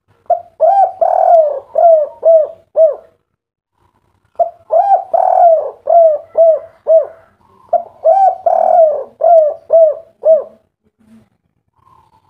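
Spotted dove (derkuku, tekukur) singing the 'kuk 3' song type in loud cooing phrases. It gives three phrases, each a quick run of about six short, arching coo notes, with about a second's pause between them.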